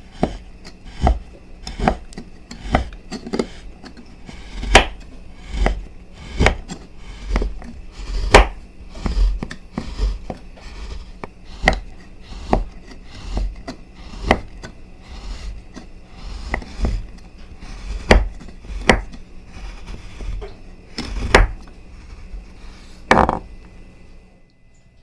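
A chef's knife chopping a bar of white chocolate into shavings on a bamboo cutting board: a steady series of knocks as the blade hits the board, roughly one a second, stopping shortly before the end.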